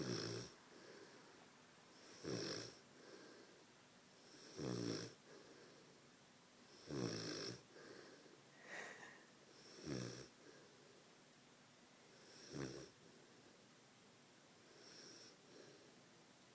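A sleeping puppy snoring in deep sleep: a snore about every two and a half seconds, the last one fainter. Between them, about nine seconds in, comes one short higher-pitched whistle.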